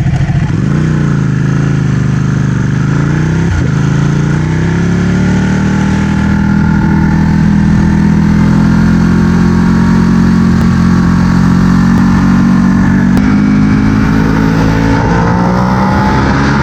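Ducati Panigale 1199's Superquadro V-twin engine running, its pitch wavering up and down over the first few seconds with a brief dip about three and a half seconds in. It then settles into a steady note that slowly rises.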